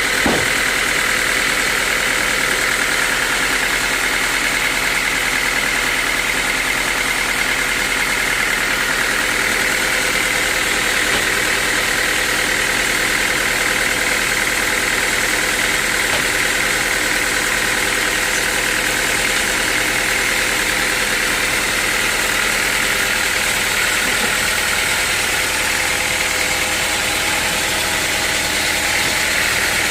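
Sawmill machinery running steadily: a motor's constant drone with a steady high-pitched whine over it, unchanging throughout.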